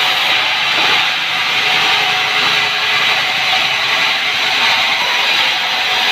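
Sawmill saw cutting through a log, a loud, steady noise with no break.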